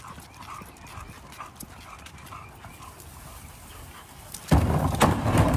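A dog making faint short repeated sounds, with light clicks. A loud burst of noise lasting about a second comes near the end.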